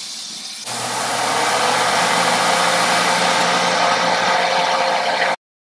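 Ground beef sizzling in a hot pan under a steady fan-like rushing with a low hum, which jumps in suddenly about a second in and cuts off abruptly near the end.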